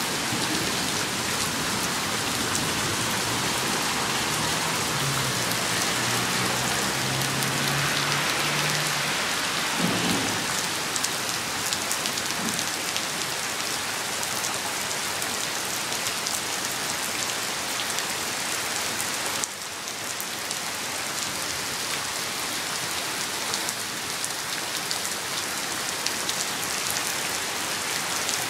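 Heavy rain pouring onto a concrete driveway and wet street, a steady hiss.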